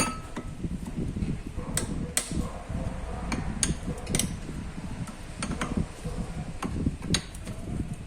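Scattered metallic taps and clicks of tools on a starter motor's housing and parts as it is taken apart, about half a dozen sharp knocks over a low steady rumble.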